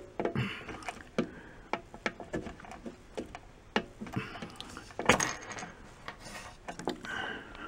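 Fingers working the small plastic retaining ring off the check valve in a Hakko 470 desoldering station's vacuum inlet: scattered light plastic clicks and rubbing, with a sharper snap about five seconds in as the check valve springs out.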